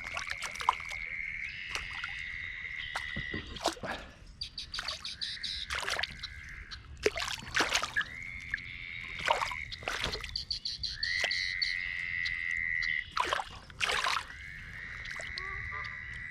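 Frogs trilling: several long, steady trills of two to three seconds each, one after another, with short sharp sounds scattered between them.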